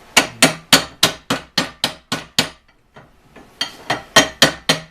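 Hammer peening over the end of a pin on a Model T transmission pedal, mushrooming it so it can't come out. Rapid sharp metal-on-metal strikes at about four a second: a run of about nine, a pause of about a second, then another quick run.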